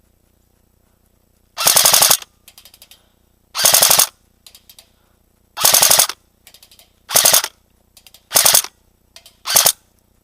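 Airsoft gun fired full-auto in six short bursts of rapid shots, each about half a second long and a second and a half apart, the later bursts shorter, with fainter short rattles between them.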